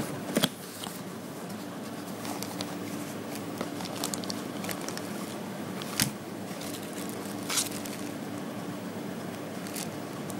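Cardboard parts box being opened by hand and a plastic bag crinkling as it is handled, with a few sharp knocks and rustles over a steady background hum.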